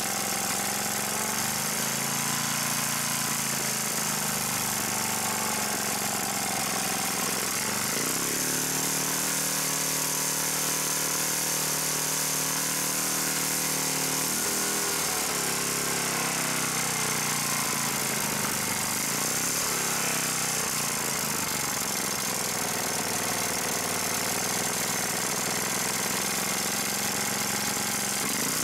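Tecumseh Enduro OHH55 single-cylinder small engine running, its speed shifting up and down several times as the throttle and idle are worked. It won't settle at low idle, which the owner puts down to a broken throttle spring.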